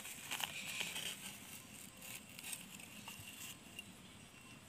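A metal digging blade scrapes and scoops dry, crumbly soil a few times in the first second. After that only faint rustling follows.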